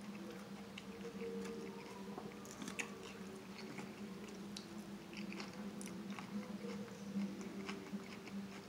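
Close-up chewing of a mouthful of seafood salad with lettuce, with small crunches and clicks scattered throughout. A steady low hum runs underneath.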